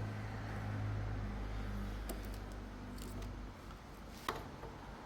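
A few light clicks and taps of multimeter probes on the terminals of a washing machine's water inlet valve, over a low steady hum that fades out after about two seconds.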